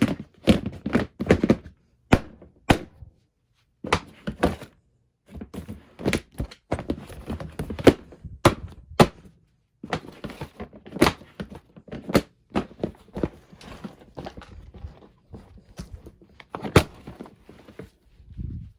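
A trash can being shoved and wrestled with: a long run of irregular thunks and knocks, some sharp, with rustling and scraping between them.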